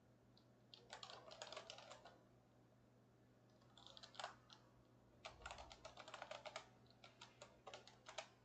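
Faint computer keyboard typing in four short bursts of rapid keystrokes with pauses between them.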